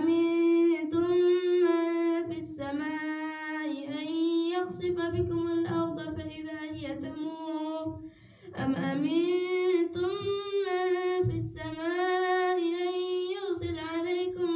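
A man's voice chanting Quran recitation aloud in the melodic, drawn-out style of a prayer leader, holding long notes with short breath pauses between phrases.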